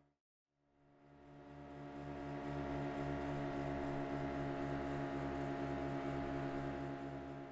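Motorboat engine running at a steady speed: an even, droning hum with a slight regular throb. It fades in after a brief silence and fades down near the end.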